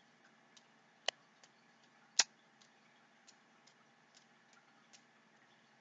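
Two sharp clicks, about a second apart, over a faint, irregular light ticking.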